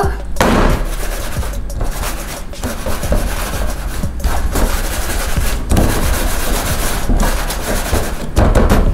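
Round metal baking pan scraping and rubbing as it is slid and swirled about on a stainless steel counter. The scraping is continuous and rises and falls unevenly.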